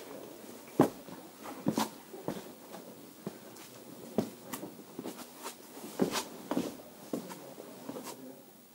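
Footsteps of a hiker walking down stone steps: irregular scuffs and taps of shoes on rock, about one to two a second, thinning out near the end.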